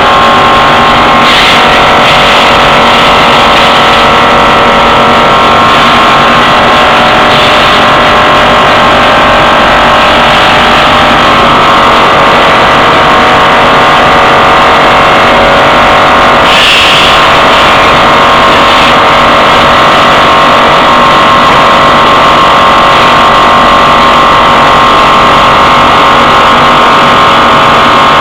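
Pellet production machinery running loudly and steadily: a mechanical drone with several steady whining tones, and a few brief hisses, one about seventeen seconds in.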